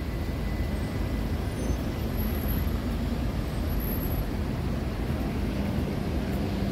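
City street traffic noise: a steady, continuous low rumble of passing road vehicles.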